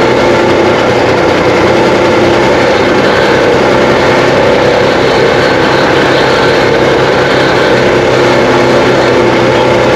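1982 Kenworth K100 cabover's diesel engine idling steadily, loud and close, with no revving.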